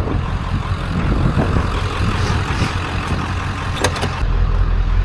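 A vehicle engine running steadily with a low rumble, with one sharp click about four seconds in.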